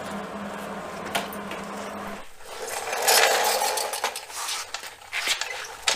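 A steady low hum that cuts off about two seconds in, followed by a stretch of scraping and then metallic clinks and knocks as metal parts are handled.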